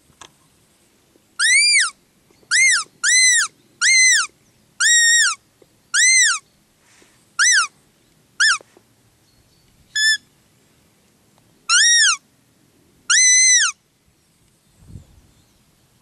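Roe deer lure call blown close to the microphone: about eleven short, high peeps, each rising and then falling in pitch, imitating a doe's fiep to draw a rutting roebuck.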